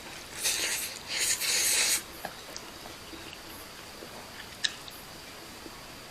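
Ramen noodles slurped in two short noisy draws within the first two seconds, followed by quiet chewing with a few small clicks.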